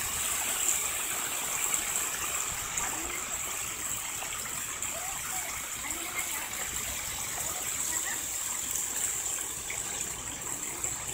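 Small waves washing up a shallow beach and breaking in foam, a steady rush of water.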